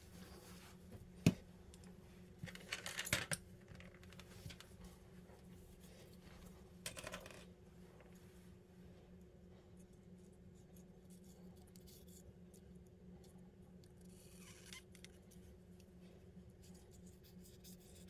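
Small clicks and handling noises as a 1911 pistol frame and its parts are handled on a rubber gun mat: one sharp click about a second in, a cluster of clicks about three seconds in, another brief one near seven seconds and a faint scrape later, over a steady low hum.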